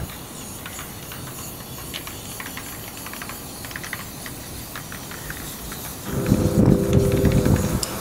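Aerosol spray-paint can hissing as paint is sprayed onto a metal roll-down shutter. About six seconds in, a louder low rumble with a steady hum comes in for a couple of seconds.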